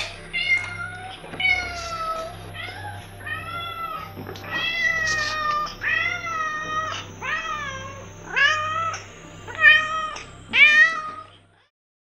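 A long-haired white cat meowing over and over, about fifteen meows in quick succession, each rising and then falling in pitch.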